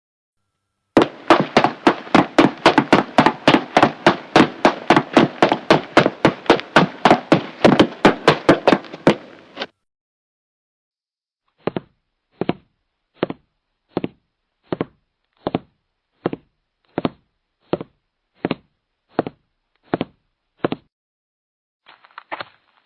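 Added sound effect: a rapid train of sharp knocks, about five a second, for around nine seconds; then, after a short pause, slower single clicks a little under a second apart.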